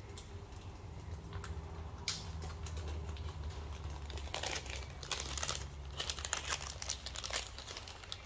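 Packaging crinkling and rustling in irregular bursts as small gaskets are unwrapped, after a single sharp click, over a steady low hum.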